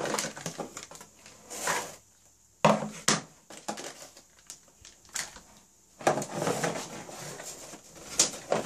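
Hands unpacking a toy set: cellophane and plastic bags crinkling and a cardboard box rustling as plastic pieces are pulled out. The loudest moment is a sharp knock of hard plastic a little under three seconds in, with another short knock near the end.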